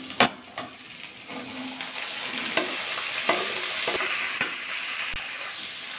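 Chopped red spinach (lal shak) tipped into a kadai of hot mustard oil and fried onions, sizzling as it hits the oil, with a few knocks and scrapes of a spatula stirring it. The sizzle builds from about a second in.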